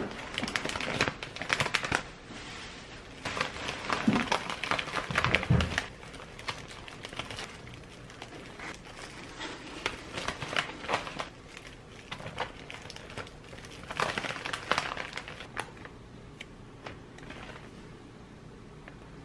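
Translucent paper treat bags and a thin plastic glove crinkling as hands open and fill the bags, in several bouts of a second or two with quieter rustling between. There are two soft low knocks about four and five and a half seconds in.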